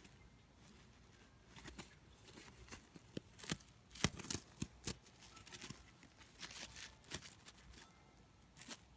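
A cat pawing and chewing at a catnip bag: faint, irregular rustles, crinkles and small clicks, busiest a few seconds in.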